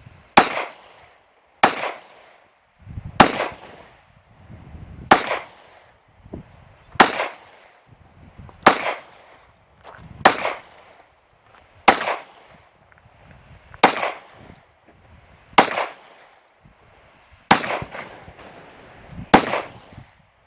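9mm pistol fired shot by shot at a slow, steady pace, about twelve shots spaced one and a half to two seconds apart.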